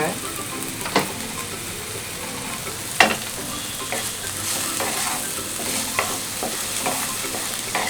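Sliced pointed gourd frying in hot oil in a frying pan with a steady sizzle as it is stirred, and a few sharp clicks of the spatula against the pan, the loudest about three seconds in.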